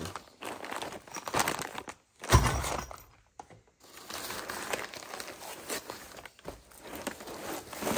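Crinkling and rustling of plastic parts bags, crumpled kraft packing paper and a foam sheet as hands dig through a cardboard box, in irregular bursts with short pauses. A sudden thump about two seconds in is the loudest sound.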